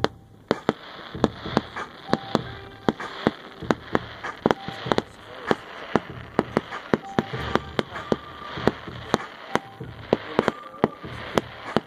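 Distant aerial fireworks going off over a lake: an irregular string of sharp bangs and pops, several a second.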